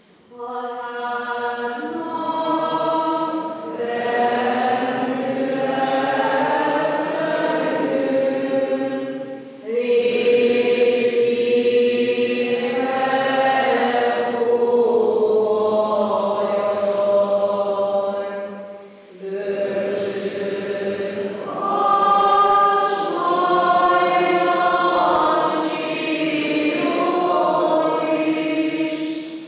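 Choral singing of a slow piece in long held phrases, with short breaths about ten and twenty seconds in.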